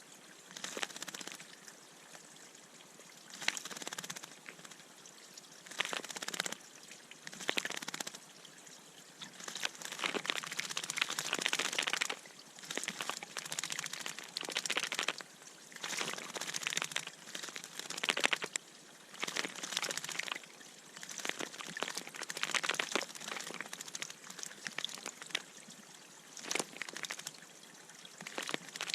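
Birds bathing in a bird bath, splashing and flapping their wings in the water in irregular bursts.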